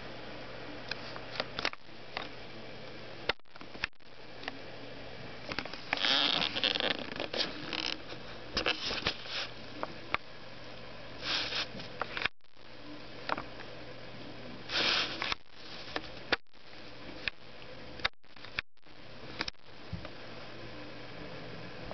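A cat sniffing and breathing close up: short breathy puffs and soft clicks over a steady low hum. The sound cuts out abruptly several times.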